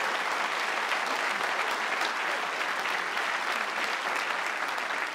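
A theatre audience applauding steadily, a dense even clatter of many hands clapping.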